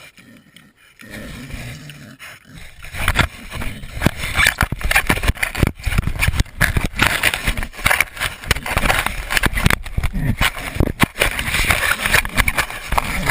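A pig handling a fallen GoPro camera: close, irregular scraping and knocking on the camera housing, sparse at first and getting busier about three seconds in.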